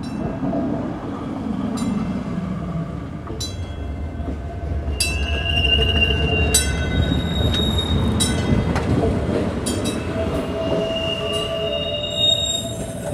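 Restored ex-Toronto PCC streetcar running past on its track: wheels rumbling on the rails, with clicks and brief high-pitched wheel squeals. It is loudest in the middle as it goes by, then eases as it moves away.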